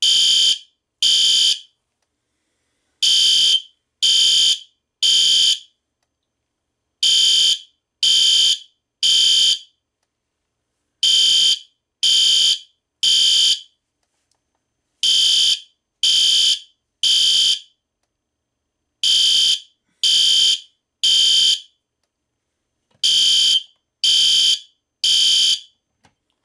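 System Sensor SpectrAlert Classic and SpectrAlert Advance fire alarm horns sounding together in sync, driven by an MDL sync module. They give the temporal-three evacuation pattern: three short, shrill blasts, a pause, then three more, about every four seconds.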